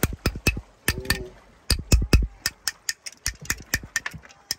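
Knife blade chopping at a boiled spider conch's hard shell, a quick series of sharp knocks about four a second with a short pause about a second in, cracking the shell open so the meat can be taken out.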